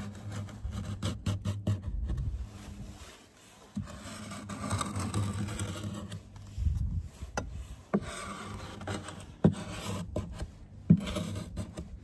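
Metal hive tool scraping and rubbing along the damp plywood inner wall of a horizontal beehive, clearing away moisture, with a few sharp knocks of the tool against the wood in the second half.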